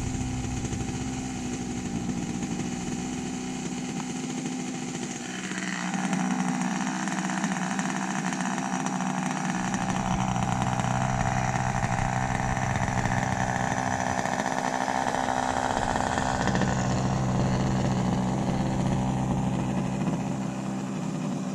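Small model-airplane engine running, its note shifting as the throttle changes about five seconds in and again later.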